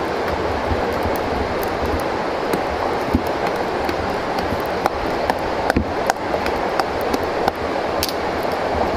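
A steady rushing noise, with scattered sharp clicks from a machete blade shaving a wooden stick.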